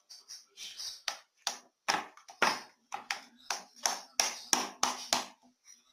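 Slime being squeezed and pressed in the hands, making a quick run of sharp wet clicks and pops, a few a second.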